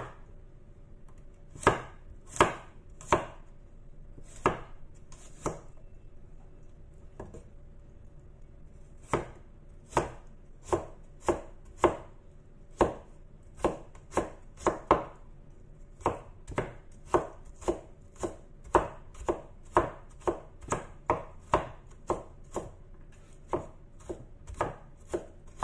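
Cleaver chopping garlic cloves on a bamboo cutting board: a few single strokes at first, then steady chopping at about one and a half strokes a second from about nine seconds in.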